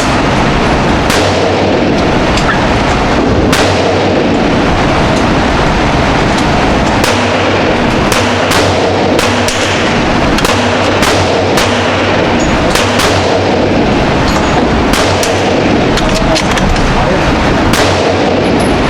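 Gunshots at a shooting range, many sharp cracks at irregular intervals, some less than half a second apart, over a steady loud rushing noise.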